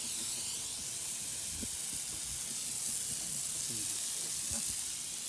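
Garden hose nozzle spraying a jet of water: a steady hiss.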